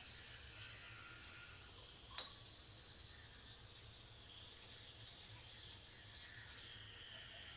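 Near silence: faint steady background hiss, broken by a single sharp click about two seconds in.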